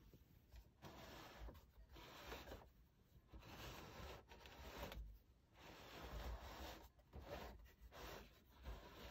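Faint handling noise: a series of short rubbing and scraping swishes as a hand grips and turns a plastic nightlight lamp.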